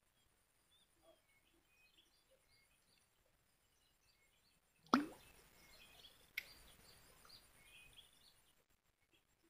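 Small birds chirping faintly. About five seconds in comes a sudden loud plop, followed by a few seconds of low rustling with one sharp click.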